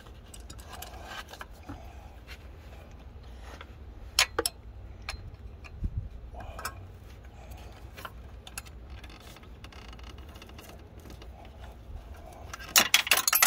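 Metal hand tools clinking and scraping on a water pump pulley, held with pliers over cardboard while a wrench works its bolts. There are scattered sharp clicks, and a quick run of louder clinks near the end.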